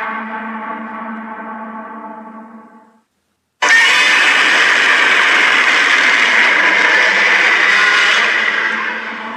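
Monster roar sound effect mixed from Godzilla roars. The pitched end of one roar fades out over about three seconds. After a short gap a second, rougher and noisier roar starts abruptly, holds steady, and begins to fade near the end.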